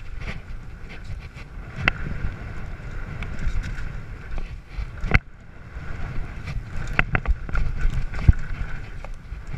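Mountain bike speeding down a dirt trail: wind rushing over the microphone, tyres on dirt and the bike rattling, with several sharp knocks over bumps, the loudest about five seconds in and just after eight seconds.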